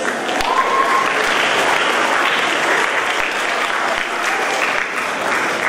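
Audience applauding in a large hall, steady clapping that swells up at the start and keeps going.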